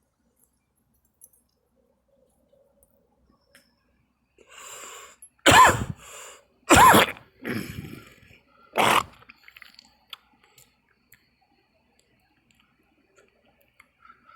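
A person coughing: a short fit of coughs starting about five seconds in, three of them loud and spread over about three and a half seconds, with weaker ones between.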